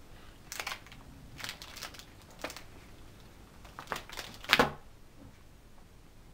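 Handling sounds: a handful of short rustles and knocks as packaging and objects are moved about, the loudest a little after four and a half seconds in.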